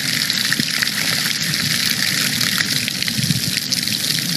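Rainwater running down a metal rain chain hung from a roof spout: a steady rush of water with many small splatters.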